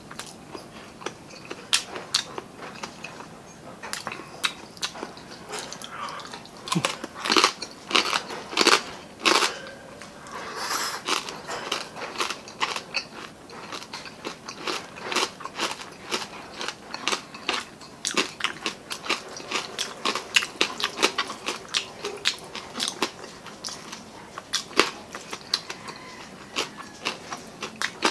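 Close-miked eating sounds of a person chewing a handful of rice and coconut-milk-stewed tilapia: wet chewing with many sharp mouth clicks and smacks, loudest a few seconds in and coming thick and fast near the end.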